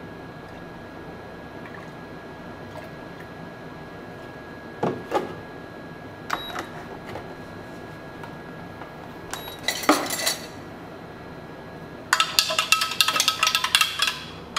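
A metal bar spoon stirring briskly in a tall glass of milk, clinking fast and evenly against the glass. The clinking starts suddenly in the last couple of seconds and is the loudest sound. Before it come a few separate knocks and clinks of a jug and glassware being handled, over a faint steady hum.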